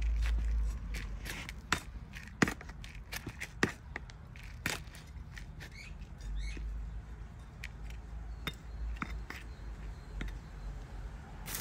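Metal hand trowel scooping and scraping potting mix in a plastic plant pot: irregular crunching scrapes and sharp clicks as grit and the blade knock against the pot.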